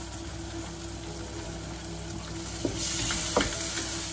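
Prawns, chillies and onion sizzling in a hot wok. The sizzle gets louder about three seconds in as a spatula stirs them, with a couple of knocks of the spatula against the wok.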